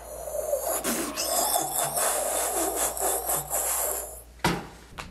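A person making a sound effect with their mouth: a noisy hiss lasting about three seconds, then a single sharp click.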